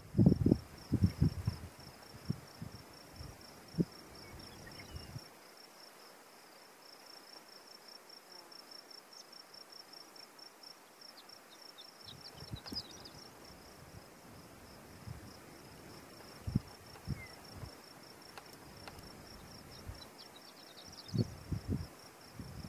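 A steady, rapidly pulsing high insect trill runs throughout. Twice, about halfway through and near the end, brief faint clusters of high tinkling horned lark song notes rise above it. Low thumps on the microphone are loudest in the first few seconds and again near the end.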